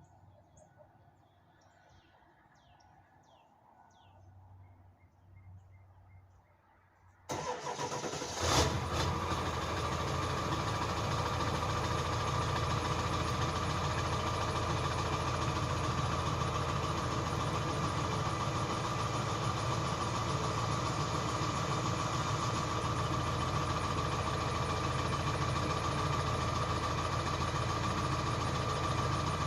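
Ford Super Duty 7.3 L Power Stroke V8 turbodiesel cold-starting: after about seven seconds of quiet it cranks, catches with a loud burst about a second later, then settles into a steady idle.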